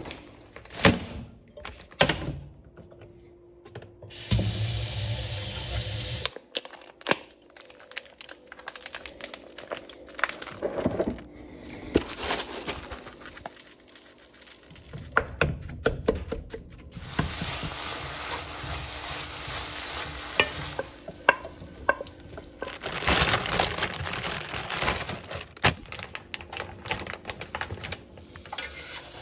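Food-preparation sounds: utensils clicking and knocking against cookware, with stretches of steady hiss like food sizzling in a pan or water running, changing abruptly every few seconds.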